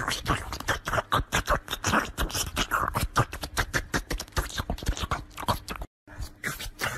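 Kitten sucking and licking on a finger: a quick, wet run of smacking clicks, several a second, with a brief break near the end.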